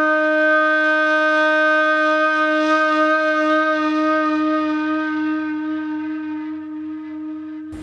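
Background film score: one long held note on a reedy wind-instrument sound, wavering slightly, slowly fading and cut off suddenly at the end.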